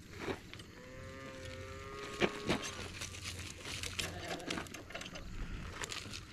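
A sheep bleats once, a long steady call starting about a second in and lasting about two seconds. Scattered sharp clicks and rattles come from the harness clips and buckles being fastened.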